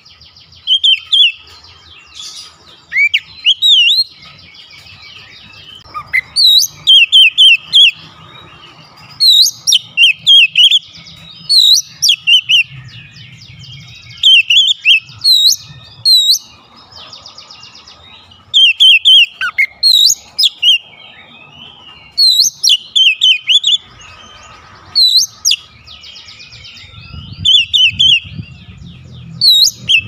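Oriental magpie-robin singing loud, rapid phrases of sharp chirps and high whistled sweeps, repeated every two to three seconds with short pauses between.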